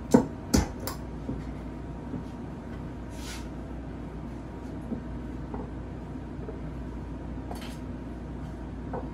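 Cocktail glass, bar spoon and bottles handled on a bar counter: two sharp clinks within the first second and a weaker one just after, then quieter knocks and a short hiss about three seconds in, over a steady low hum.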